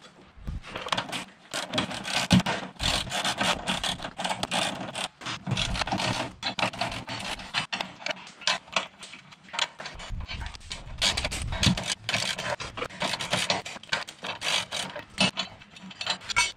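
Ratchet wrench clicking in quick, uneven runs with metal scraping as a Honda Pilot's subframe bolt is worked loose.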